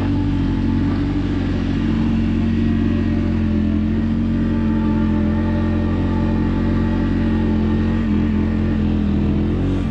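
ATV engine running at a steady, moderate speed while the machine is ridden through snow, its pitch shifting slightly near the end.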